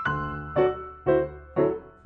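Background piano music: single notes and chords struck about twice a second, each ringing and fading.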